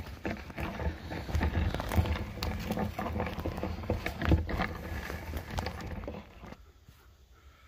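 Quick footsteps crunching and rustling through dry leaves and twigs on the forest floor, with heavy low thumps under them. The noise drops away about six and a half seconds in.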